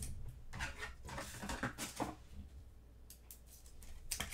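Trading cards and clear plastic sleeves being handled: soft plastic rustling with scattered light clicks, busiest in the first two seconds and again with a few sharper clicks near the end.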